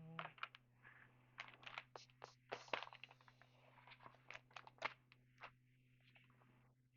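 Faint, scattered rustles and light clicks of trading cards being handled and flipped through, over a low steady hum.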